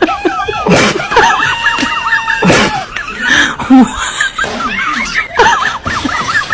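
High-pitched laughing and giggling in quick repeated bursts, with a held squealing tone lasting about a second and a half near the start.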